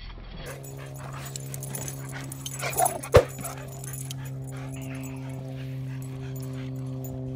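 Dogs playing rough, with one sharp bark about three seconds in, over a steady low mechanical hum.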